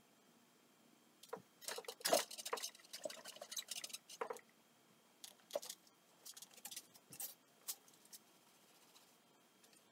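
A cloth rubbing and rustling on a bicycle frame, with clicks from the bike being handled, for a few seconds. After that come scattered single clicks and knocks as the tandem bicycle is shifted and moved.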